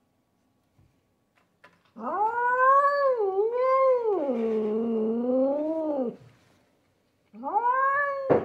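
A cat yowling at a rival cat on the other side of the window glass: one long wavering yowl of about four seconds that rises and dips in pitch, then a second yowl starting near the end.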